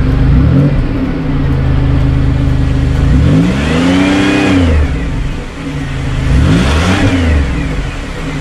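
2000 Chevy Impala's V6 engine idling and revved twice, a long rise and fall about three seconds in and a shorter one about six and a half seconds in, running on its newly replaced fuel pump.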